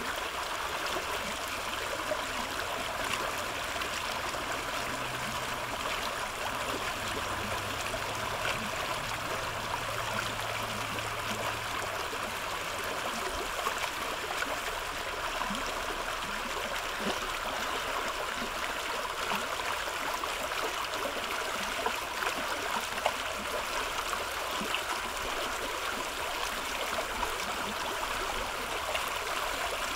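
Shallow brook running steadily over rocks and pebbles, with water breaking white over a rock in a small riffle.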